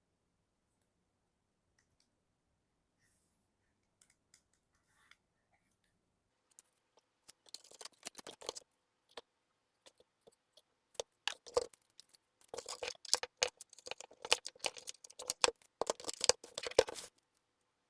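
Handling noise from unpacking a smartphone: irregular scratching, rustling and sharp clicks of hands on the box and packaging, starting after several quiet seconds and growing busier in the second half before stopping.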